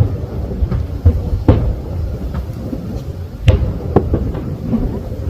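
Fireworks bursting over a lake: several sharp booms over a continuous low rumble, the strongest about three and a half seconds in.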